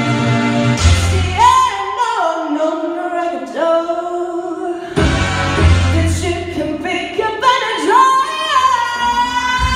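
A woman's solo voice singing through a microphone over a recorded backing track of chords and bass. The bass drops out about two seconds in and returns halfway through. She slides up into a long held high note near the end.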